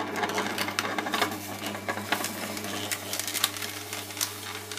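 Foodmatic personal slow juicer running with a steady low motor hum while its auger grinds frozen banana pieces into soft-serve, with irregular clicks and crunches as the frozen fruit is crushed and pushed down the chute.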